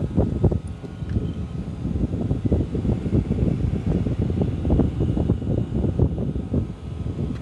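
Mitsubishi Mr. Slim air conditioner outdoor unit running: a loud, uneven low rumble with a rapid fluttering pulse and a faint steady hum.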